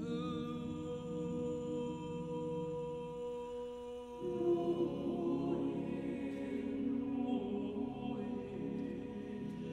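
Choir with an alto soloist singing slow, sustained notes over a steady held tone; a fuller, louder layer of voices comes in about four seconds in.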